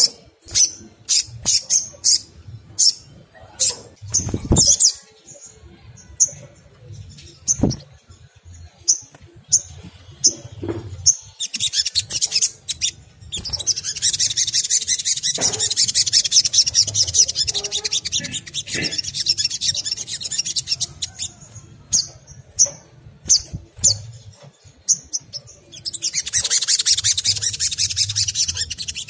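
Olive-backed sunbird calling: a run of sharp, high-pitched chips that breaks into long, rapid chattering trills around the middle and again near the end.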